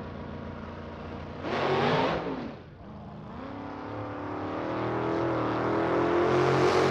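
Drag car's engine at the starting line: idling, a short sharp rev about a second and a half in, then the revs climb and are held high as the car gets ready to launch.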